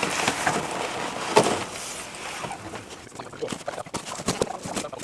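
Scuffing and rustling handling noise with knocks as something is moved carefully: a sharp knock about a second and a half in, then lighter scattered knocks near the end.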